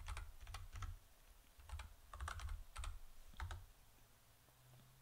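Typing on a computer keyboard: quick runs of keystrokes in a few short bursts, stopping about three and a half seconds in.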